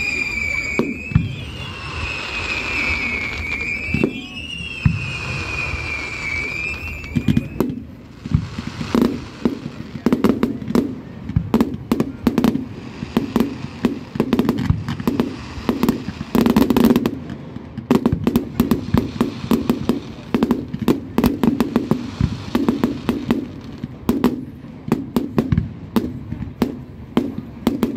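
Fireworks display: a high whistling tone slides down and back up three times, then from about eight seconds in a rapid, continuous barrage of bangs and crackles from shells bursting overhead.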